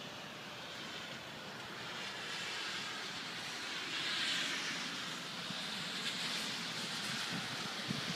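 A car passing on a wet road, its tyre hiss swelling gradually to a peak about four seconds in, over the steady hiss of rain.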